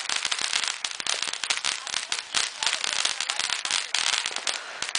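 Consumer fireworks crackling: a dense, continuous run of rapid small pops, like a firecracker string or a crackling fountain.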